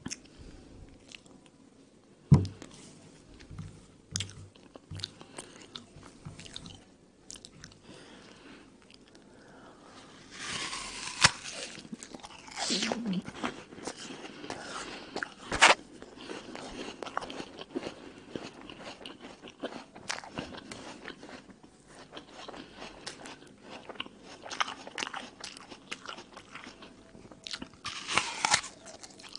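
Crisp red American apple being bitten and chewed: crunchy chewing with scattered clicks, and sharp, loud bites into the apple about halfway through and again near the end.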